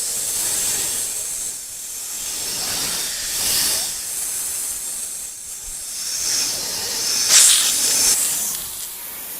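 Snakes hissing, a sound effect: a run of long hisses that swell and fade, the loudest about seven seconds in.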